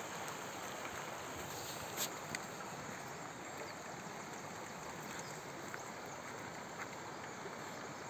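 Steady outdoor background noise, an even hiss, with a couple of faint clicks about two seconds in.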